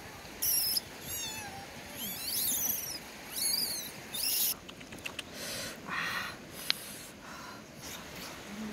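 A young monkey squeaks about five times in quick succession, each call short and very high-pitched with a quick up-and-down sweep. Softer rustling and a few light clicks follow in the second half.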